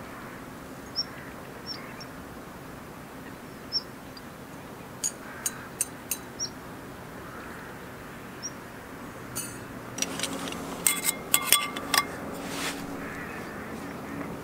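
Lakeshore ambience with steady wind and water noise and birds giving short calls now and then. A few sharp clicks come around the middle, then a run of metallic clinks from camp cookware being handled, about two-thirds of the way in.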